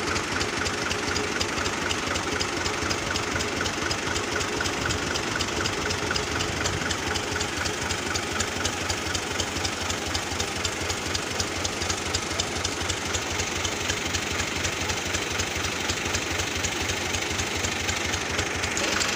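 Ghazi tractor's diesel engine running steadily at idle, with a rapid, even knocking beat.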